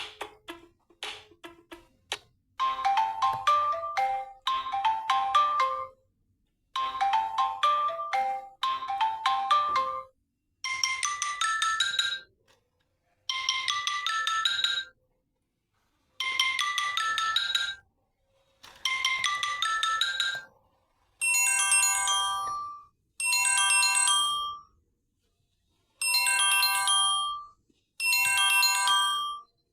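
Samsung Galaxy J5 Prime alarm tones previewed one after another, each a short mallet-like melodic jingle looping with brief gaps. A quick run of plucked notes gives way at about two and a half seconds to a repeated melody. About ten seconds in, that changes to a sweeping rising-and-falling arpeggio, and from about twenty-one seconds to a chime pattern repeating every couple of seconds.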